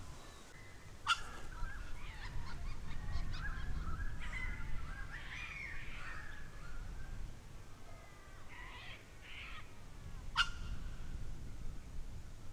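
Birds calling and warbling over a low rumble, with two sharp clicks, one about a second in and one near the end.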